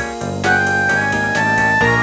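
A Nokia 1112 built-in ringtone playing: a synthesized melody of several held notes over a bass line, taken directly from the phone's earphone output rather than through a speaker.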